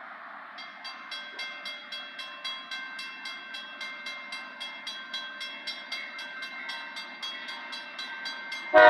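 Railroad grade crossing bell ringing steadily at about four strikes a second as the crossing signals activate for an approaching train. Just before the end, the GE B23-7 locomotive's air horn comes in loud.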